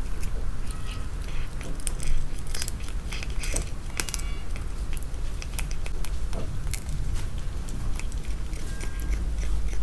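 Dry cat food or cat treats clicking and crackling in small irregular taps, over a low steady rumble, with the sharpest click about two seconds in.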